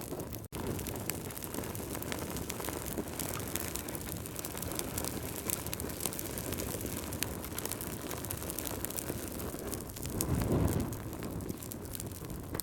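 Wood fire burning in a fireplace: a steady low rush of flame with many small sharp crackles and pops from the logs. The low rushing swells louder about ten seconds in, and there is a split-second gap in the sound about half a second in.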